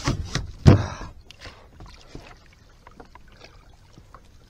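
Knocks and a heavy thump against a plastic Hobie fishing kayak's hull as an angler handles his rod and landing net during a fish fight, loudest about a second in, followed by faint scattered clicks.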